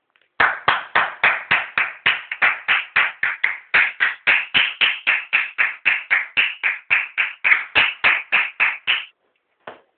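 One person clapping hands very loudly and fast, at about four sharp claps a second. The clapping stops suddenly about nine seconds in, and one lone clap follows.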